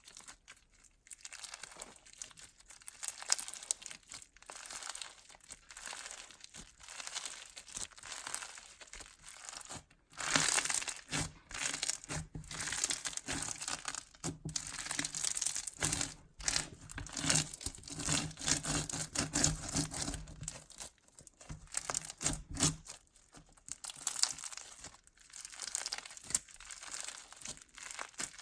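Bead-heavy crunchy slime being squished and kneaded by hand, its beads giving a dense run of small crackles and crunches that gets busier and louder about ten seconds in.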